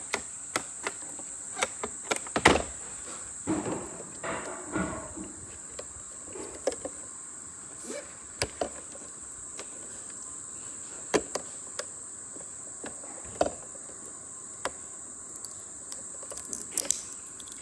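Scattered clicks and knocks of a plastic robot vacuum and its parts being handled, the loudest about two and a half seconds in. A steady high-pitched whine runs underneath throughout.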